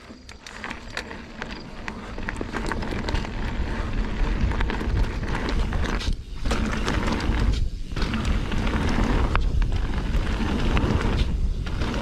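Mountain bike rolling fast down a dirt jump line: tyre and trail noise under heavy wind rumble on the rider's camera microphone, building over the first few seconds as speed picks up, then holding with three brief dips.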